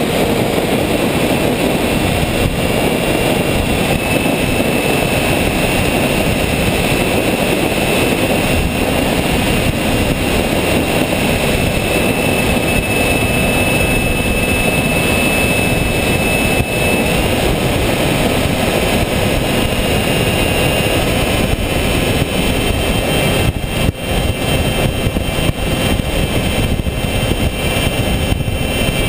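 RC airplane's motor and propeller heard from the onboard camera: a steady rush of wind and propeller noise with a thin whine whose pitch shifts slightly a few times.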